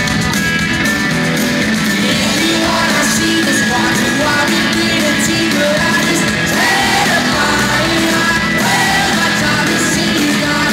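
Live rock band playing and a man singing, recorded loud from among a concert crowd.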